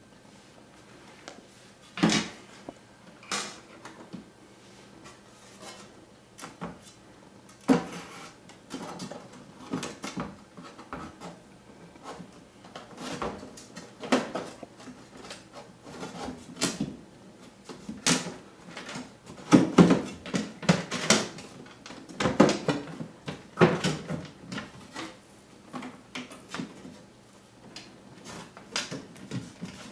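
Hands fitting the lamp assembly back into a DLP projection TV: irregular plastic clicks, knocks and scrapes, densest and loudest about two-thirds of the way through.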